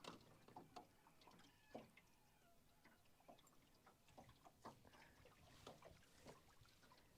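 Near silence, broken by a few faint scattered clicks and light knocks.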